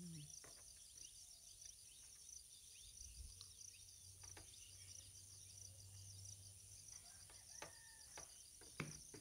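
Near silence: faint steady insect chirring in the background, with a few soft clicks from a screwdriver working the terminal screws of a miniature circuit breaker (MCB) board.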